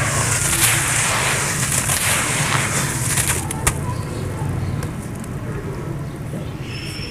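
A hand squeezing and crumbling damp, gritty sand-cement mix in a bucket: crackling crunches of grains and falling clumps, busiest for the first three and a half seconds, with one sharp click just after, then fading to quieter crumbling.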